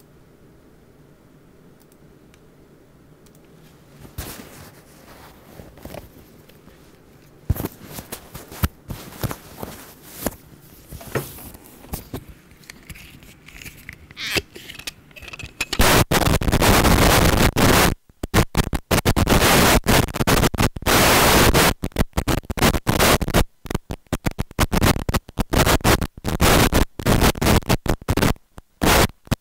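Faint hiss, then scattered crackles and scratchy clicks. About halfway through it turns into loud, harsh static that keeps cutting in and out.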